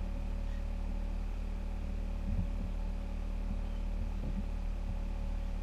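A steady low mechanical hum, unchanging in level, with a faint thin high tone over it and a soft low knock a little before halfway.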